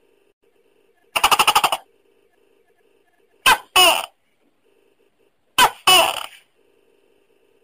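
Tokay gecko calling. A short rapid rattle of about ten beats comes first, then two two-syllable "to-kay" calls about two seconds apart, each a short first note and a longer second note that falls in pitch.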